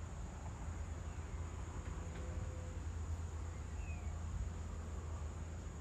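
Outdoor evening ambience of insects chirring in one steady high-pitched tone over a low rumble, with a faint short chirp about four seconds in.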